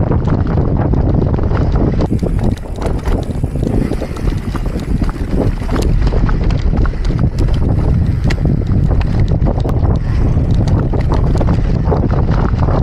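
Wind buffeting the microphone of a camera riding on a mountain bike, with a busy clatter of quick knocks and clicks from the bike and its tyres on rough trail.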